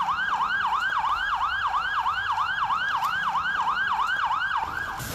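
Fire engine's siren on a fast yelp: a rising sweep repeated about three and a half times a second, cutting off near the end.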